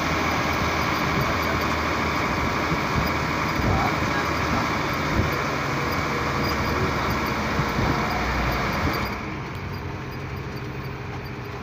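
Isuzu FTR truck's diesel engine running with wind and road rush while driving, heard from inside the cab. About nine seconds in the rush drops sharply and the sound becomes quieter and duller.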